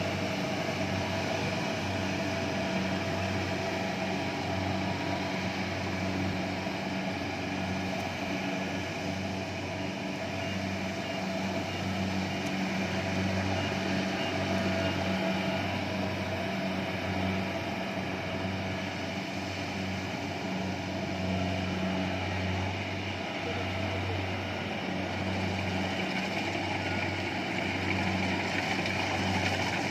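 Kubota rice combine harvester running steadily, its diesel engine droning at an even pitch.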